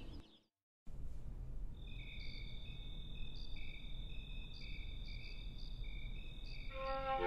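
Crickets chirping at night: a steady high trill with shorter chirps coming and going over a low hiss, after a brief moment of silence.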